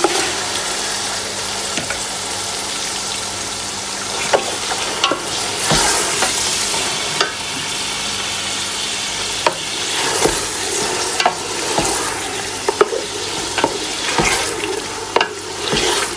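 Raw chicken pieces sizzling and frying in hot oil and browned onions in a stainless steel pot, as a wooden spoon stirs and turns them. A steady sizzle, broken often by sharp clicks and knocks of the spoon and the pieces against the pot.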